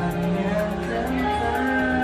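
Music: a slow song with long held notes.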